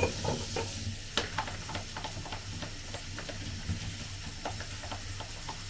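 Tap water running into a stainless-steel sink while a small saucepan is rinsed and washed by hand, with many light irregular clicks and scrapes of the pot against hands and sink. A steady low hum runs underneath.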